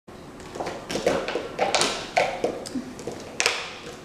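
A string of sharp, irregular taps and knocks, about eight in four seconds, some with a brief ringing tone.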